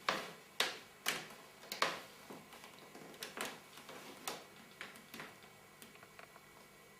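Handling noises: a string of irregular sharp clicks and short crackles, several a second at first, growing sparser and fainter toward the end.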